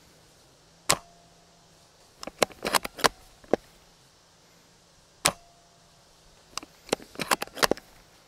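Novritsch SSG10 spring airsoft sniper rifle fitted with a Wasp piston, fired twice with a single sharp snap each time. About a second after each shot comes a quick run of clicks as the bolt is cycled to chamber the next BB.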